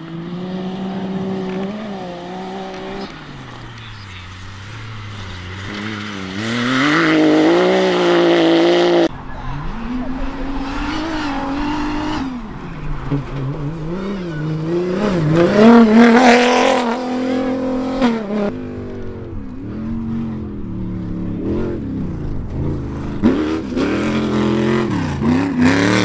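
Off-road rally cars, among them a Toyota Hilux rally-raid truck and side-by-side buggies, accelerating hard on a dirt course, their engines revving up and down through the gears. The sound breaks off abruptly about nine seconds in as one pass cuts to the next, and is loudest a little past the middle.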